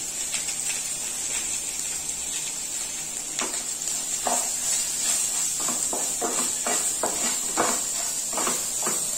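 Sliced ivy gourd with shallots and curry leaves frying in oil in a non-stick pan, with a steady sizzle. From about three seconds in, a wooden spatula stirs and scrapes against the pan about three times a second.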